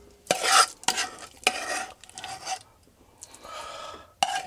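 A metal spoon scraping thick miso rice porridge out of a saucepan into a bowl, in several short strokes and then a softer, longer one, with a sharp knock near the end.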